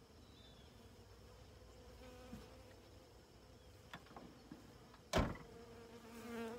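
Honey bees from an opened hive buzzing as they fly around the microphone, one buzz swelling louder near the end as a bee comes close. A sharp knock about five seconds in is the loudest sound.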